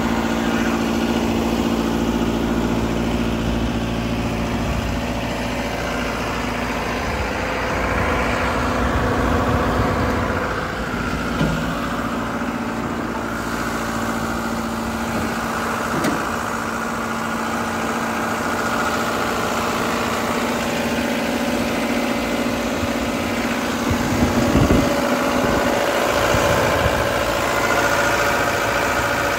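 Volvo EC150 excavator's diesel engine running steadily at a constant speed, heard close over the engine deck and engine compartment.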